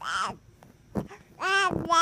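Baby babbling: a short syllable right at the start, then a longer, wavering babble near the end.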